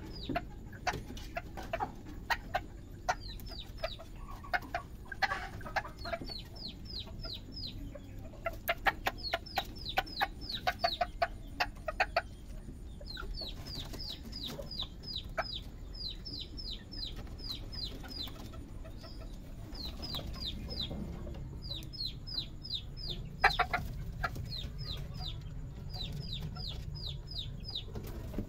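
Serama bantam chickens calling: repeated runs of quick, high, falling chirps, about five a second, with some lower clucks between the runs.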